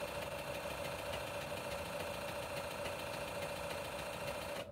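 Ham radio station keyed on transmit while the SGC-231 automatic antenna tuner searches for a match on 6 m: a steady hum with fast ticking that stops near the end.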